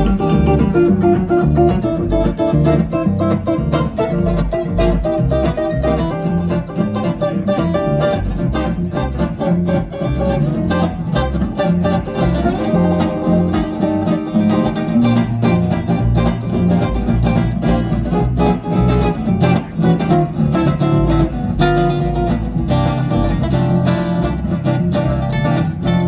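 Gypsy jazz trio playing live through a stage PA: two acoustic guitars, one running quick lines of notes, over a walking double bass.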